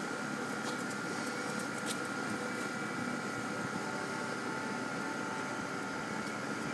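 Steady machine hum with a constant high whine over it, and a few faint ticks.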